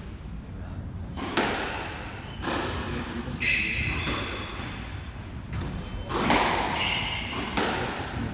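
Squash rally: sharp smacks of the ball off rackets and walls, about five over several seconds, with short high squeaks of court shoes on the wooden floor in between.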